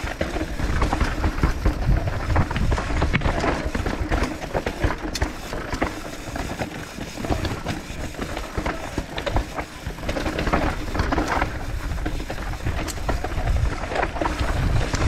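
Mountain bike descending a rocky gravel trail: tyres crunching over loose stones and the bike rattling with a dense run of clicks and knocks. Under it runs a steady low rumble of wind on the camera's microphone.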